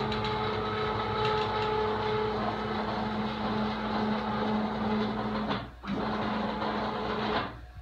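CNC router spindle running steadily while engraving a halftone image into a dark panel, with a steady whine and the whirr of the moving gantry. It breaks off briefly near six seconds and cuts off shortly before the end.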